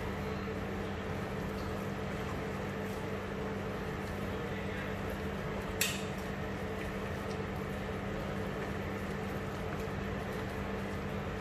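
Steady hum of an induction hob running, under a wooden spoon stirring a chunky cabbage and mutton curry in a stainless steel pot. One sharp knock, the spoon against the pot, about six seconds in.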